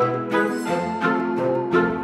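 Background music: light instrumental with plucked notes on a steady beat, joined about two-thirds of a second in by a held high note with vibrato.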